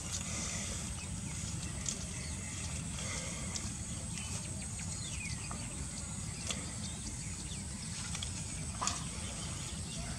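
Outdoor background noise: a steady low rumble and a steady high hiss, with scattered faint clicks and a few short falling chirps.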